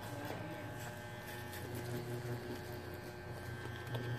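Electric hair clippers running with a steady low buzz while cutting a mannequin head's hair at the temple.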